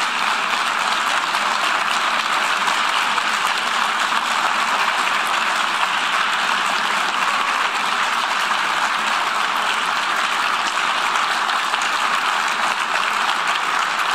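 Large crowd of delegates applauding, a steady sustained ovation with many people clapping at once.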